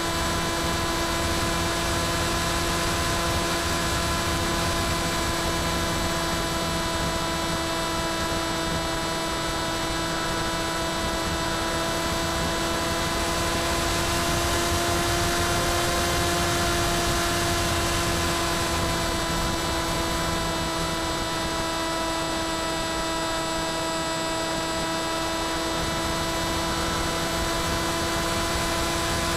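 Electric motor and pusher propeller of an FX-61 Phantom flying wing whining steadily in cruise flight, with rushing wind, heard through the onboard camera's microphone.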